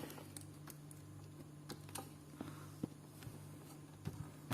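Laptop keys pressed a handful of times, faint scattered clicks at irregular intervals, over a low steady hum.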